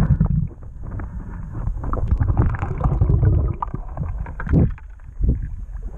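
Muffled underwater noise through a camera housing: a low rumble with many irregular knocks and clicks as the camera is moved quickly through seaweed. The rumble eases a little past the middle, and a louder knock comes near the end.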